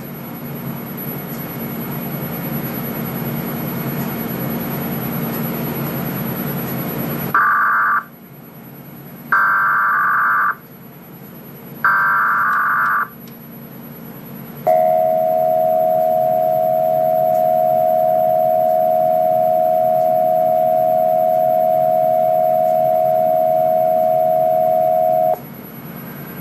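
Emergency Alert System broadcast test, pitched down: a hiss, then three short buzzing bursts of the digital SAME header about two seconds apart, then the steady two-tone attention signal held for about ten seconds before cutting off sharply.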